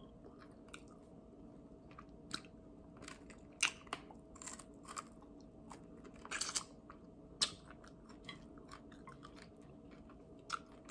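Close-miked eating of barbecue chicken wings: irregular bites, crunches and chewing clicks, some sharper than others, over a faint steady hum.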